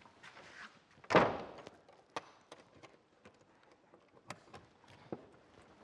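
Quiet handling of a wooden door: a bump about a second in, then a scatter of light clicks and taps as its latch is worked.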